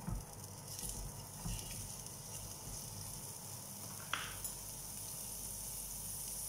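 Butter melting and sizzling in a hot nonstick frying pan over a gas burner, with one light tap about four seconds in.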